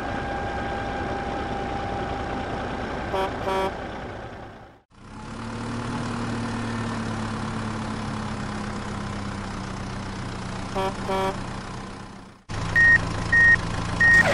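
Tractor engine sound running steadily, with a quick double horn toot twice. After a cut near the end, a reversing alarm beeps three times.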